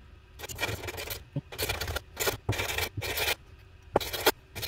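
Yamaha VMax master cylinder body being rubbed back and forth on sandpaper, a series of short scraping strokes with brief pauses between them, taking the paint off the area where it seals.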